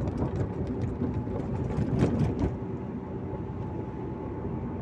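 Car engine and road noise heard from inside the cabin while driving: a steady low rumble, with a few short clicks and knocks in the first half, the loudest about two seconds in.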